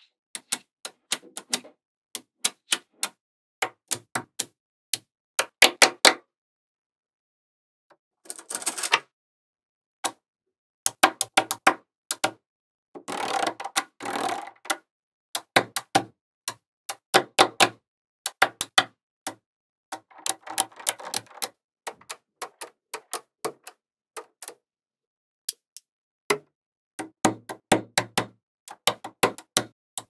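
Small neodymium magnetic balls clicking as strips of them snap onto a larger magnet-ball build: single sharp clicks and quick runs of clicks, with three longer stretches of dense clattering.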